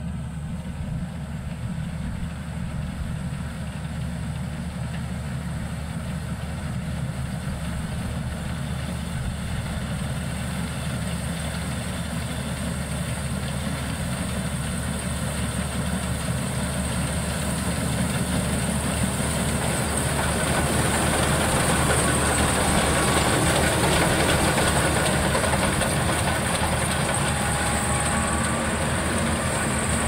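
Maxxi Bimo 102L rice combine harvester running while it harvests standing rice: a steady mechanical drone of engine and machinery that grows louder as it comes closer, with a high hiss that strengthens in the second half.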